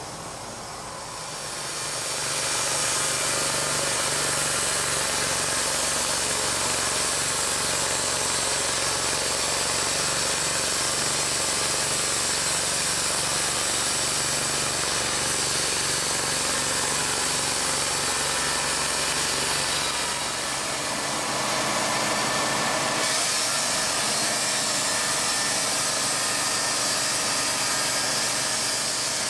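TimberKing B-20 portable bandsaw mill running and sawing a walnut log: steady engine and blade noise that comes up about a second and a half in. A low hum drops out about twenty seconds in, and the sound changes slightly a couple of seconds later.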